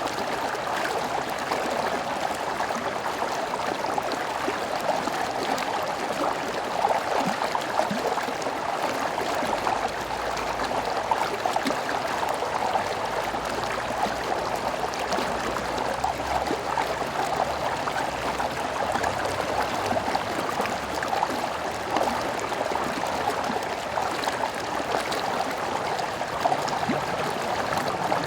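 Stream water flowing steadily, an even rushing babble with a faint low rumble underneath.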